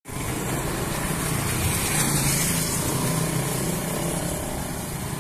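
Steady street noise with a motor vehicle engine running: a low hum under an even hiss.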